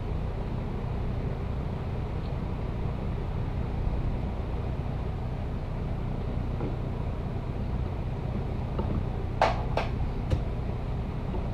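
Steady low background hum, with three sharp plastic clicks near the end as the charging wire is tucked behind a motorcycle's plastic trim cover.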